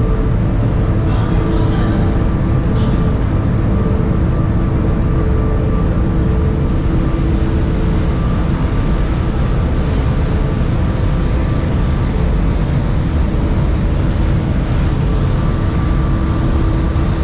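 Car ferry under way: its engines running with a steady low rumble and a few steady humming tones over it.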